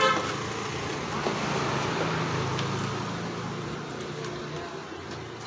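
Road traffic: a passing motor vehicle's engine and tyre noise, swelling about two seconds in and then slowly fading away.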